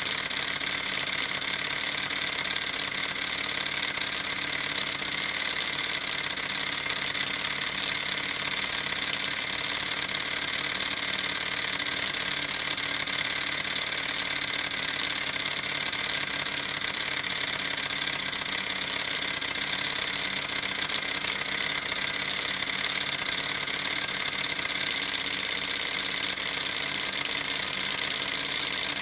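Halo Liney five-cylinder radial live steam model engine running at a steady speed, driving its spinning propeller: an even, unbroken mechanical running sound with no change in pace.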